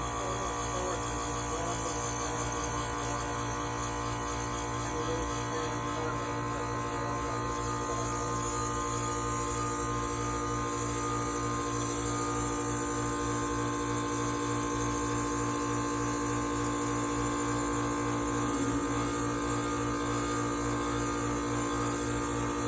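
Air conditioner's compressor and condenser fan running steadily, a continuous electrical hum with several steady tones.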